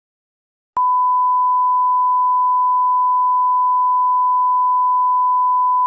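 Electronic test tone, the steady reference tone that goes with colour bars: one unbroken pitch that switches on suddenly just under a second in.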